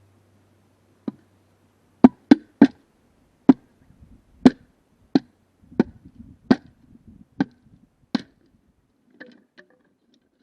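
Six-way bamboo splitter being struck or driven down a bamboo culm: a series of about ten sharp, hard knocks, spaced half a second to a second apart, with a fainter knock at the start and near the end.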